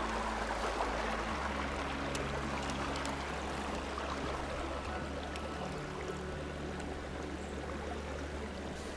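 Shallow creek water flowing over rocks, a steady wash of running water.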